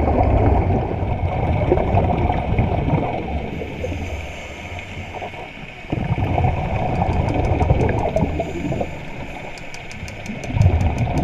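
Underwater sound picked up by a submerged action camera: muffled, churning water noise and gurgling with a steady hum, and a fast run of faint ticks in the second half.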